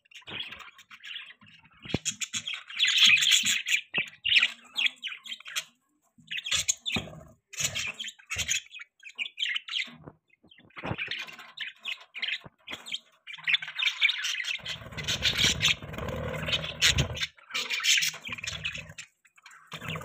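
A flock of budgerigars chattering, a dense warble of quick high chirps and squawks that comes in bursts with short pauses between.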